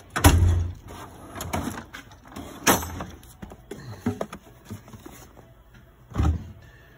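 Metal drawers of a Snap-on tool chest being slid shut and open: a loud bang about a quarter second in, clatters and rattles of tools around the middle, and another bang near the end.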